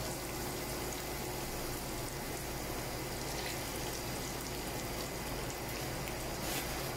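Coconut cream poured into a pan of garlic and onion sautéed in hot oil, then hissing as it heats. A low steady hum runs underneath.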